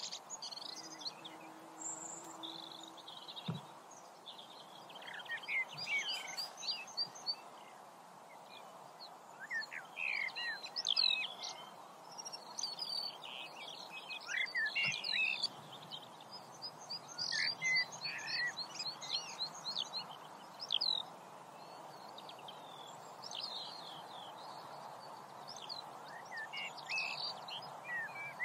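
Several small birds chirping and singing in many short, overlapping calls and trills over a steady background hiss.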